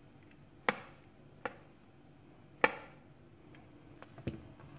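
Serving spoon knocking against a plate and pan while cooked rice is dished out: about five sharp clacks, the two loudest near the start and in the middle.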